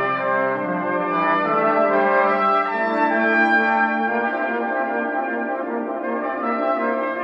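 Brass quintet playing held chords that move in steps. The lowest part drops out about half a second in, leaving the upper voices sustaining.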